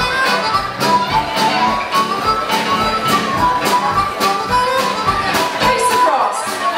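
Live folk dance band playing a lively contra dance tune: a melody on wind instruments over a steady beat.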